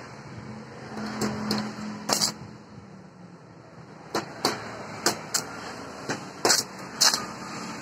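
Stick (arc) welder striking its arc on steel in about ten short crackling bursts, in two clusters: brief tack welds on a steel bracket.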